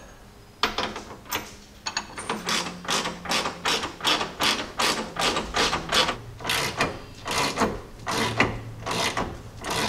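Socket ratchet clicking as it is swung back and forth in quick strokes, about three a second, tightening the 3/4-inch bolts at the ends of a front track bar.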